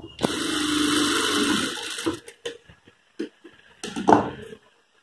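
Industrial single-needle sewing machine running for about two seconds as it stitches a dart in blouse fabric, then stopping; a few short clicks and fabric rustles follow as the piece is pulled from under the needle.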